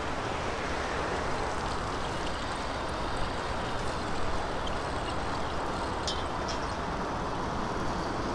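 Steady rushing noise of wind and moving air heard from a bicycle being ridden in a strong wind, with a few faint high ticks about six seconds in.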